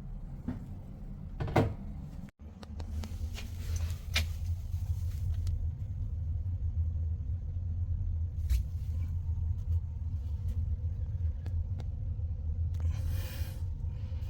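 A steady low hum with a few sharp clicks and knocks; the sound cuts out briefly about two seconds in and the hum comes back louder, and there is a short hiss near the end.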